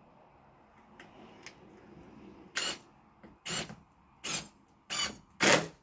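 Quiet for the first couple of seconds, then a hand tool works wood in separate scraping strokes, about five of them, coming faster and louder toward the end.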